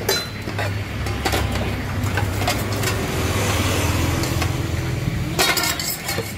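Low, steady hum of a road vehicle's engine that swells through the middle, with a few sharp knocks of a cleaver chopping on a wooden board near the start and a clatter of knocks near the end.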